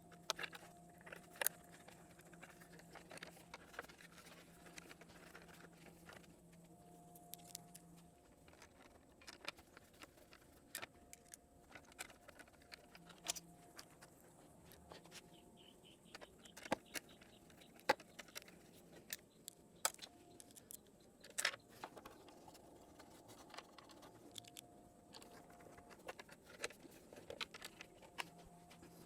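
Scattered, irregular faint clicks and clinks of hand tools and fasteners as a motorcycle's parts are put back together, over a faint on-and-off hum.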